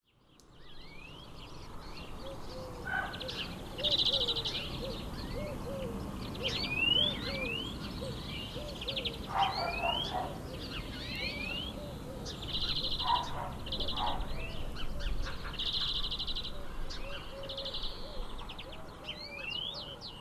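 A chorus of songbirds fading in: short rising chirps and buzzy trills from several birds, over a low call repeated about twice a second.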